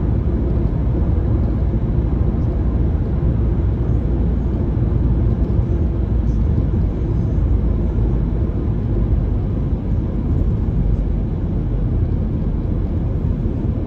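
Steady low rumble of a car driving at road speed, heard from inside the cabin.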